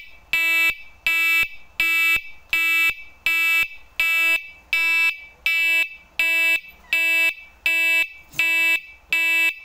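Small brass Roots electric horn, wired up on the bench, sounding in a steady train of short, loud beeps, about one every three-quarters of a second, each a single buzzing tone.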